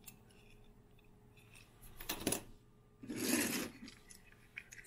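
Small die-cast metal Matchbox cars clinking together as one is put down and another picked from a pile: a sharp clack about two seconds in, then a brief rattling shuffle about a second later.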